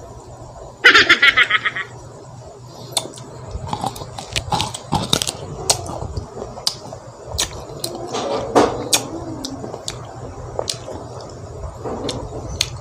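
A bite into a raw green mango slice about a second in, then close-up chewing with scattered crisp crunches and mouth sounds.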